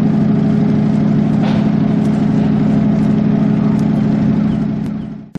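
Engine running steadily at an unchanging pitch, fading out near the end.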